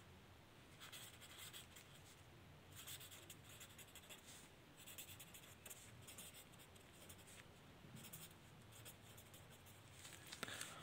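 Pen writing on lined notebook paper: faint scratching strokes in short runs, with brief pauses between words.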